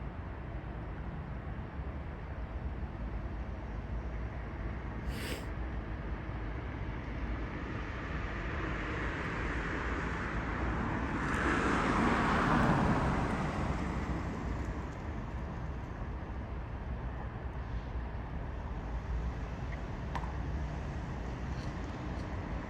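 Roadside traffic: a car passes, its engine and tyre noise swelling to a peak midway and fading away over about six seconds, over a steady low rumble of traffic. A brief click about five seconds in.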